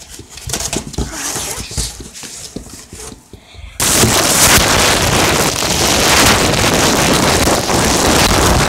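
Phone microphone being rubbed and knocked: scattered knocks and rustling, then a loud, harsh rushing noise starting about four seconds in.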